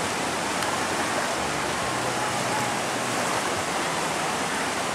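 Sea surf washing onto the beach: a steady, even rush of water.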